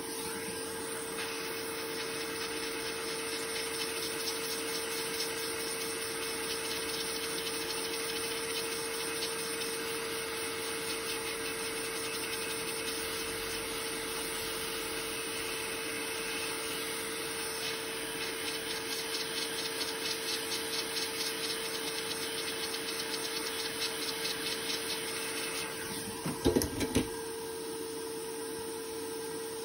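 A steady machine hum with hiss, with a brief cluster of a few knocks near the end.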